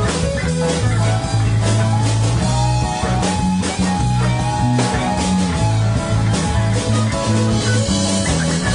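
Live rock band playing: electric and acoustic guitars over an electric bass line and a drum kit.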